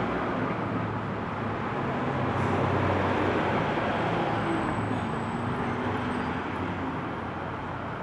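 Steady street traffic noise, with the low hum of passing vehicle engines.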